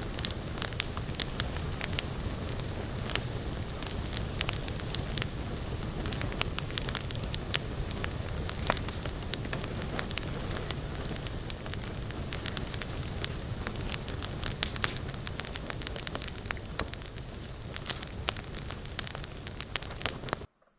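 Campfire of dry sticks and branches burning: a steady rush of flame with many sharp, irregular crackles and pops. It cuts off suddenly near the end.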